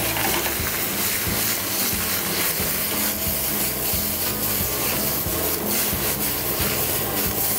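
Fresh spinach leaves sizzling in olive oil in a frying pan as the pan is shaken and tossed over a gas burner, with a steady scratchy rubbing from the leaves and pan.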